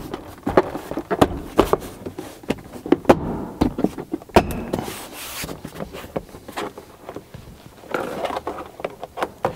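Black plastic interior trim panel of a Jeep Wrangler JL being pressed and snapped back onto its clips by hand: a run of irregular clicks and knocks, with a brief plastic scrape about halfway through and a little rubbing near the end.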